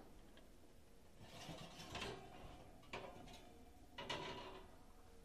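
Faint handling of a metal pan and utensils: a scrape lasting about a second, a sharp clack about three seconds in, and another scrape about four seconds in.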